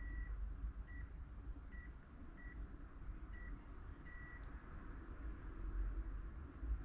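Multimeter buzzer giving six short, high beeps in the first four seconds, the last a little longer, as its probes are touched to test points on a PS5 board during short-circuit checks.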